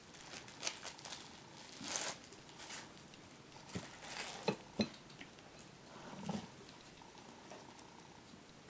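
Quiet room with a few faint, scattered clicks and light knocks, among them a short cluster of sharp ticks around the middle and a soft low thump after it.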